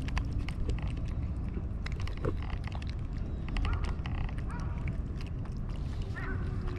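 Cats chewing and crunching their food close to the microphone: a steady run of small, irregular crunching clicks over a low background rumble.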